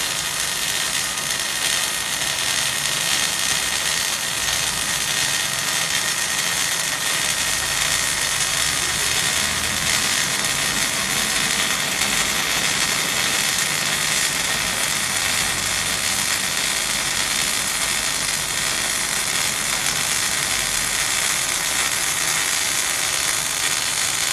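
MIG welding arc running steadily without a break: a continuous sizzling crackle as the student lays a fillet weld bead.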